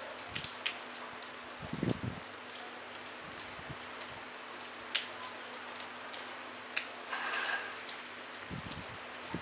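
Light rain falling steadily, a soft even hiss with scattered sharp ticks of single drops striking close by. Two dull low thumps, about two seconds in and near the end, stand out above the rain.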